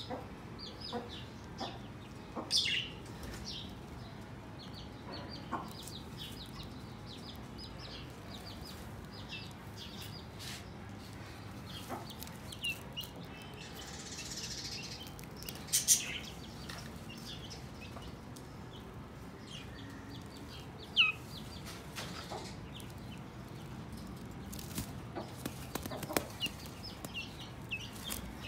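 Young broiler chicks peeping: many short, high cheeps scattered throughout, with a few louder sharp knocks about halfway through.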